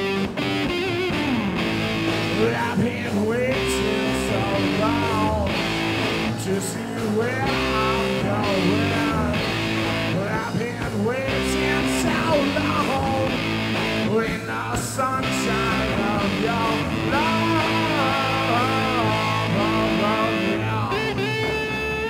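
Rock band playing live, electric guitar prominent over bass and drums.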